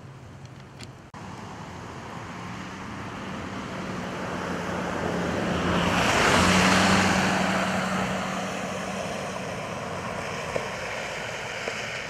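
A vehicle passing by on a snowy road, its tyre and engine noise swelling to a peak about six seconds in and then fading, with a steady hum underneath.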